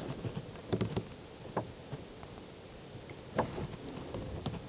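A few faint knocks and rustles over a low background rumble, typical of handling noise at a shooting bench.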